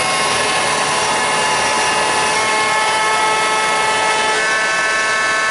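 Marvel Model 81 vertical bandsaw running with no load, its blade at top speed of 340 feet per minute: a steady machine whine made of several tones, which shift in pitch about two and a half and four seconds in.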